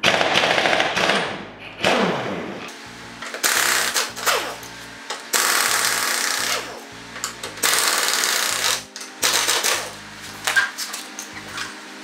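Pneumatic impact wrench hammering the lug nuts off an ATV's front wheel in several loud rattling bursts, with brief pauses between them.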